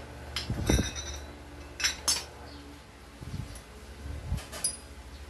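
Small metal parts of a Yamaha NMAX 155's CVT variator clinking and knocking as they are handled: a handful of sharp clinks, with a few dull knocks in between.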